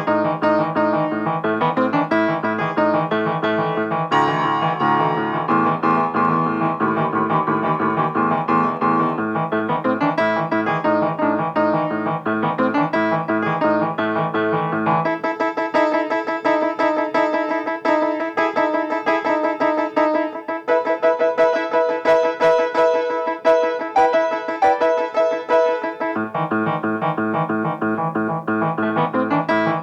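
Solo piano playing a fast passage of quickly struck notes. About halfway through, the bass drops out and the playing stays in the middle and upper register; the low notes return near the end.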